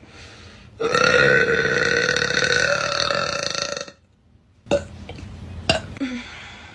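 A woman's long, loud burp, held at a steady pitch for about three seconds. A couple of sharp clicks follow shortly after.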